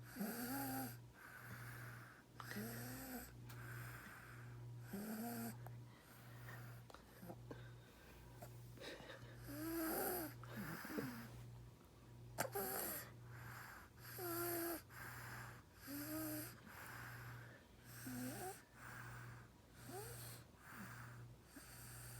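Sleeping baby snoring: a regular rasping snore on each breath, about one a second, many breaths carrying a thin whistling wheeze that rises and falls.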